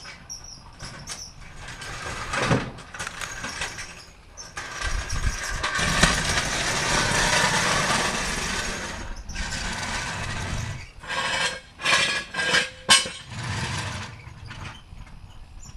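Mechanical working noises while working on a car: a long stretch of scraping or rattling metal in the middle, then a few sharp metal knocks and clanks.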